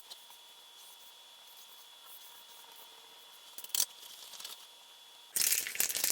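Faint scattered scratches and ticks of a pastel stick on paper. About five seconds in, a loud, fast rattle starts suddenly: an aerosol can of workable fixative being shaken, its mixing ball rattling.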